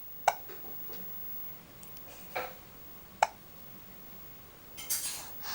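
Six-month-old baby hiccuping: three short, sharp hiccups spaced about one to two seconds apart, then a brief noisy sound near the end.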